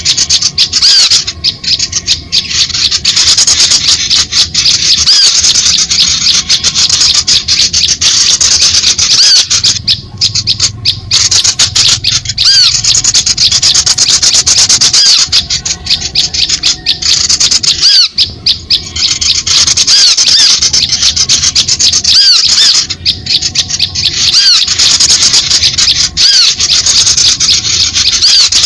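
A dense, harsh chatter of small songbirds' scolding calls mixed with rapid high chirps, with only brief dips every few seconds. It is a bird-lure (pikat) call recording meant to draw small birds in.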